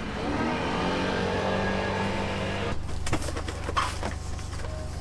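A motor runs up in pitch, holds a steady hum, then stops abruptly a little past halfway. Sharp clicks and clatters follow.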